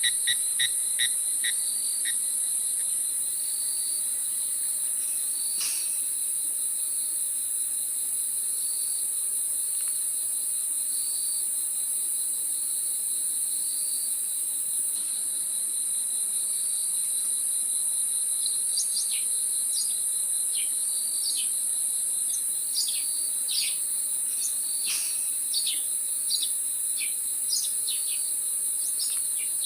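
A steady, high-pitched insect chorus trills without a break. A rapid pulsed chirping fades out about two seconds in. In the second half, birds chirp in quick short calls more and more often over the insects.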